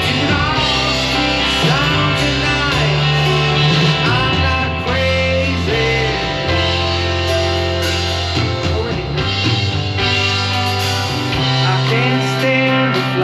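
Rock song with a singing voice, guitar and a steady bass line.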